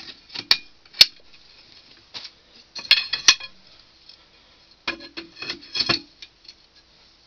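Steel hand-auger extension rods clinking together as their self-locking clips are snapped in: a sharp metallic click about a second in, then clusters of clinks around three seconds and again between five and six seconds.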